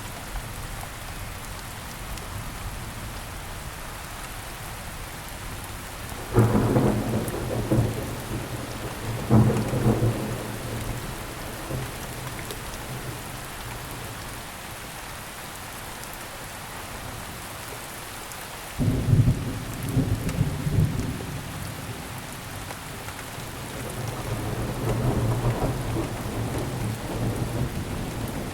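Steady rainfall with thunder: a sudden loud low clap about six seconds in that rumbles on for several seconds, another about nineteen seconds in, and a slower rolling rumble building near the end.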